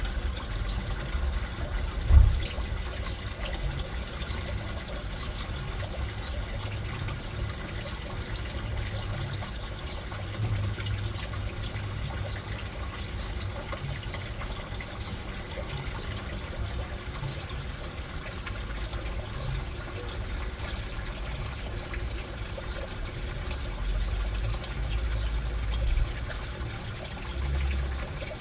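Steady trickling and running water in an aquarium tank, with a low rumble underneath and a single sharp bump about two seconds in.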